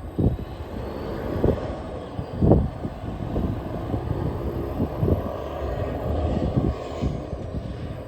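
Combine harvester running steadily, with irregular low gusts of wind buffeting the microphone.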